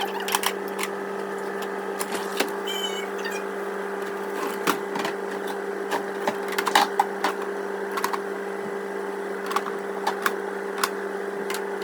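Steady electrical hum with irregular sharp clicks and knocks of hard objects being handled, one cluster louder about seven seconds in.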